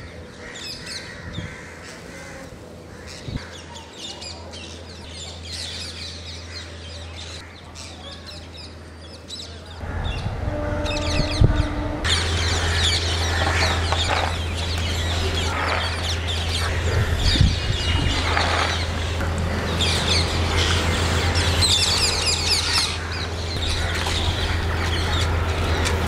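A large flock of rose-ringed parakeets calling as they feed, many short calls overlapping; the calling grows louder and denser about ten seconds in, over a steady low hum.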